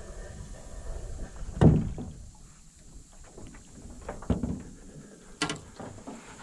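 Three hollow knocks and thumps on an aluminum jon boat. The loudest is about a second and a half in, a lighter one comes a little past the middle, and a sharp click with a brief ring follows soon after.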